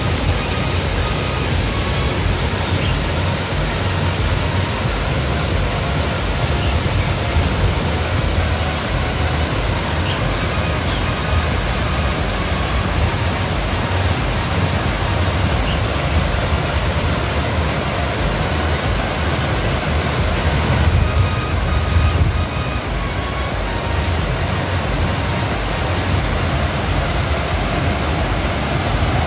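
Steady rushing noise of a small waterfall.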